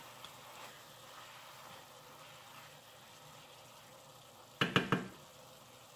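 Ground meat frying with a faint steady sizzle in a nonstick frying pan. A few seconds in, a wooden spoon stirs it and knocks and scrapes against the pan several times in quick succession over about half a second.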